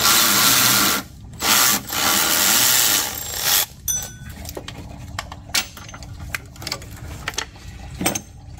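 Cordless ratchet running in three bursts over the first three and a half seconds as it spins out a 10 mm bolt, followed by scattered clicks and light metal knocks as the tool and bolt are handled.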